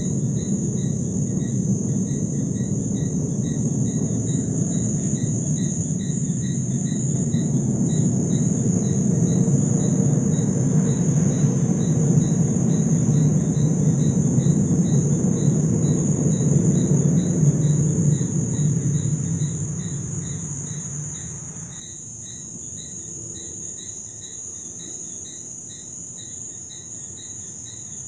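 A low rumbling drone from the night sky, of the kind circulated as the unexplained 'strange sounds in the sky', swells, then fades and drops away about three-quarters of the way through. Crickets chirp steadily throughout.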